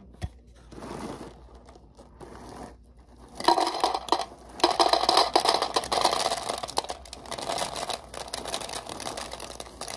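Cereal poured from its box into a plastic cup, the pieces rattling into the cup while the box's inner bag crinkles. A knock right at the start; the pour is heaviest from about three and a half to seven seconds in, then eases off.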